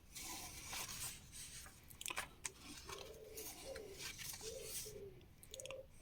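Paper magazine pages rustling as they are handled and turned, with a few light clicks a couple of seconds in.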